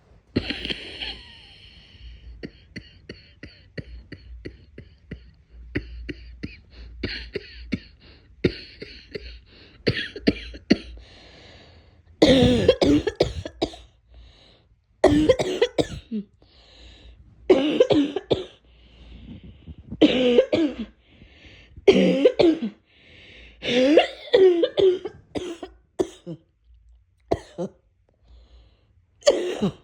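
A person coughing, which the uploader feels is a cold coming on. Quieter short clicks and throat noises come first, then from about twelve seconds in, loud coughing fits of one to two seconds each follow every two to three seconds.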